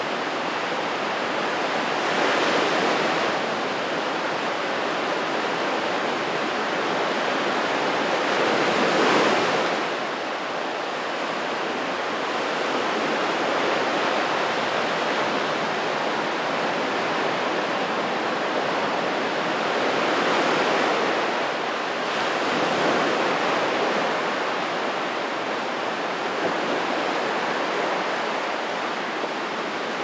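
Small ocean waves breaking and washing up a sandy beach: a continuous surf hiss that swells each time a wave breaks, loudest about nine seconds in.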